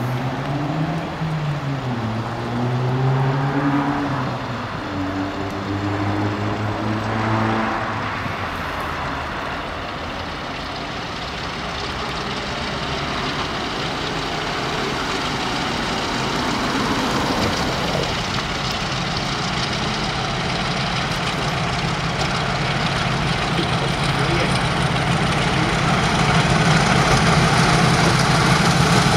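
Pair of Class 50 diesel-electric locomotives with English Electric 16-cylinder engines working hard up a gradient. The engine note rises and falls in pitch for the first several seconds, then settles into a heavy rumble that grows steadily louder as they approach.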